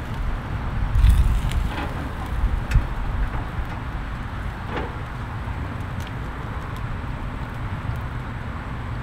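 Steady hiss from a lit gas grill with a whole flounder cooking face down in a metal grill basket, and a few light metallic knocks as the basket is handled on the grates. A low wind rumble on the microphone runs under it.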